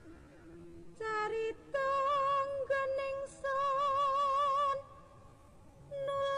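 A high, wordless singing voice holding long notes with a wavering vibrato. It comes in about a second in, pauses briefly several times and drops out for about a second near the end before returning.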